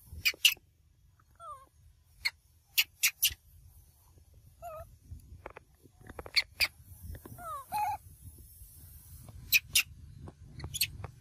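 Young macaques giving a few short, squeaky calls. Sharp clicks and taps, several in quick pairs, are the loudest sounds.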